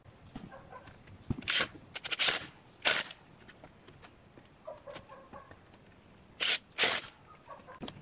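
Cordless impact driver driving screws into pine boards in short bursts, about three close together in the first half and two more near the end.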